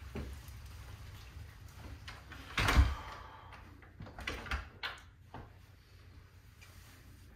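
A hinged front door being pushed shut with a single heavy thud about two and a half seconds in. A few lighter clicks and knocks follow over the next couple of seconds.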